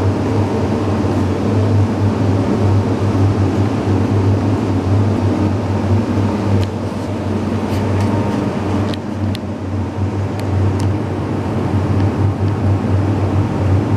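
A steady low mechanical hum, with a few light clicks in the middle.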